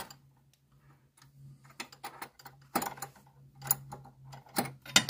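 A small spanner clicks and clinks against a brake line union nut as the nut is tightened into a brake hose. The metal clicks come irregularly, about ten in a few seconds, and grow louder in the second half over a faint steady low hum.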